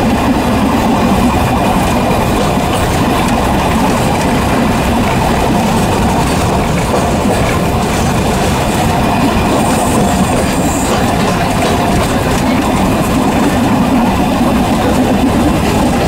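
Small tourist train running along the track, heard from inside an open-windowed car: a steady, loud rumble of wheels on rails. About ten seconds in there is a short high whine.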